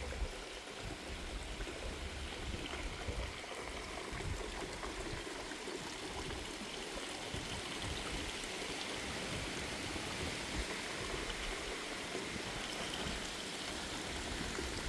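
Steady rushing of wind on a breezy night, with gusts buffeting the microphone in irregular low rumbles.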